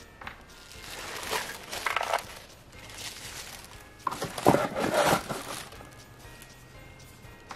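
Rustling and crinkling of packaging and small toy pieces being handled while a toy set is put together, in two bursts of a second or so, the louder one about four seconds in.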